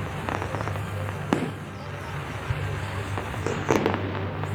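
Fireworks going off: scattered sharp bangs, a loud one about a second in and a quick cluster of cracks near the end, over a steady low hum.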